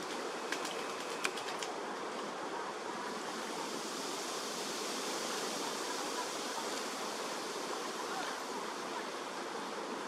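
Steady rush of flowing water in a shallow pond, with a few light splashes in the first two seconds as a juvenile crested goshawk bathes.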